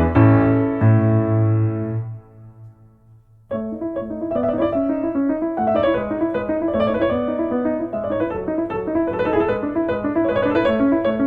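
Background piano music: a phrase of held notes fades out about two seconds in, and after a short pause a new passage of quicker notes begins.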